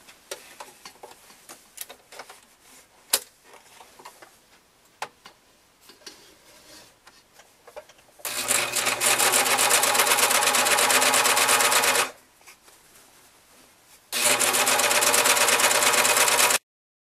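Four-thread overlock serger stitching along a fabric edge, running at a steady speed for about four seconds, pausing for two, then running again for about two and a half seconds before cutting off suddenly. Before it, a few light clicks and taps as the fabric is positioned under the presser foot.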